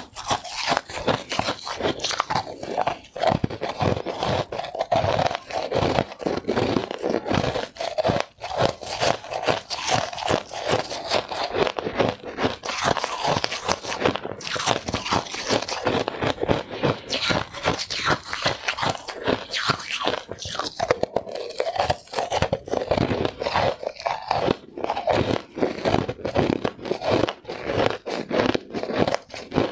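Frozen white ice balls being bitten and chewed, a dense run of crisp crunches without a break.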